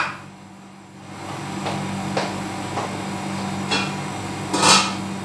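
Pots and pans being handled on a kitchen stove: a few light knocks, then one louder short clatter about four and a half seconds in, over a steady low hum.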